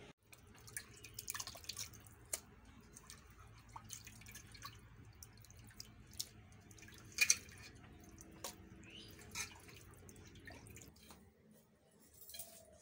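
Water dripping and splashing, with irregular small wet clicks, as pieces of raw chicken skin are handled in a steel bowl over a pot of water. One sharper click stands out about seven seconds in, and the sound drops away near the end.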